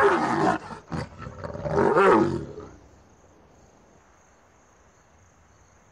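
Young lions snarling at each other in a brief scuffle, in two loud outbursts, the second about two seconds in. The young lion's snarling is a defensive, submissive display toward the dominant male. Then it goes quiet.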